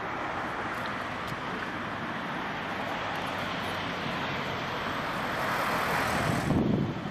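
Distant jet engine noise of a four-engined Boeing 747-400 freighter rolling along the runway after landing: a steady rushing noise that swells near the end, with wind buffeting the microphone.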